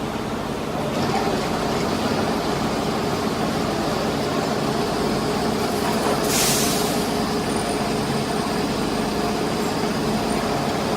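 Automatic lathe running steadily while it machines a forging, with steady machine tones and a high whine that joins about a second in. A short burst of hiss comes about six seconds in.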